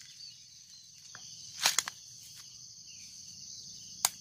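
A steady high insect chorus, with short sharp clicks and rattles about a second and a half in and again near the end as NPK fertilizer granules are spooned from a plastic bottle into a plastic cup.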